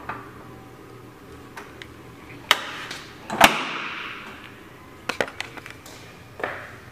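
A handful of sharp knocks and clicks: one about two and a half seconds in, the loudest about a second later with a short hiss trailing after it, a quick cluster of clicks around five seconds in, and a softer knock near the end.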